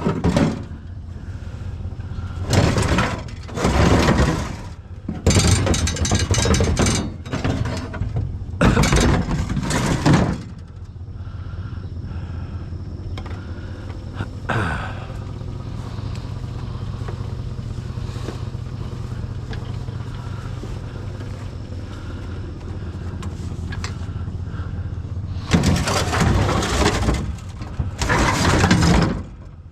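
A vehicle's engine running with a steady low drone, broken by several loud noisy bursts in the first ten seconds and again near the end.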